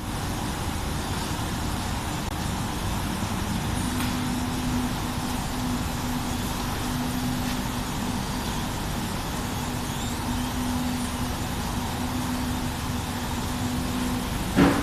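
Industrial rope washing machine for fabric running: a steady mechanical noise with a low hum that keeps swelling and fading, and one sharp knock just before the end.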